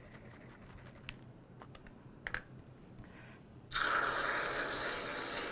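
Aerosol can of Reddi-wip whipped cream spraying: a loud, even hiss that starts suddenly near the end and runs about two seconds, after a few faint clicks and taps.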